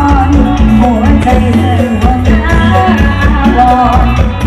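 A song with a singer and heavy bass, played loud through an outdoor PA system of speaker cabinets.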